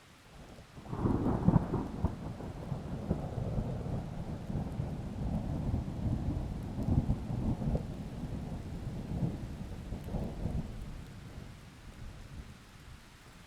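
Thunder rumbling over steady rain: it breaks loudest about a second in, rolls on in several swells, and dies away near the end.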